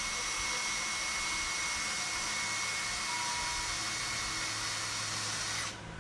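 Small handheld rotary grinder running at high speed against a wheel hub face, polishing off rust so the brake disc will sit flat: a steady high-pitched whine with hiss that cuts off suddenly near the end.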